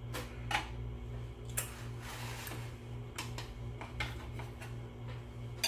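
Eating sounds close to the microphone: scattered soft clicks and smacks of chewing and mouth noises, with a brief rustle about two seconds in, over a steady low hum.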